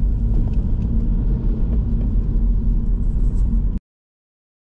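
Steady low rumble of a car driving, heard from inside the cabin, mostly engine and road noise. It cuts off suddenly near the end.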